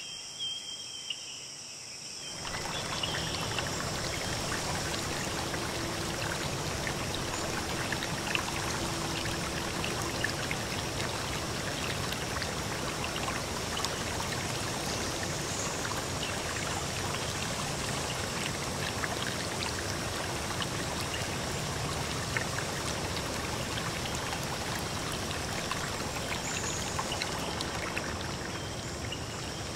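Crickets chirp faintly at first. About two seconds in, a steady rush of running water cuts in and holds evenly.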